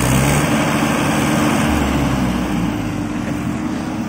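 Mahindra tractor's diesel engine running steadily while the tractor is stuck in paddy-field mud.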